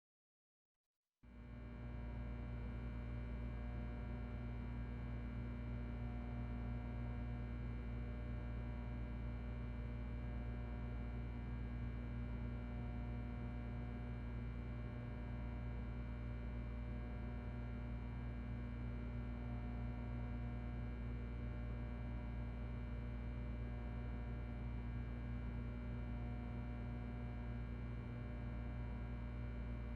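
Ventilation system running with a steady light electrical hum, several constant tones over a low drone. It starts abruptly about a second in, and a faint higher tone comes and goes every few seconds.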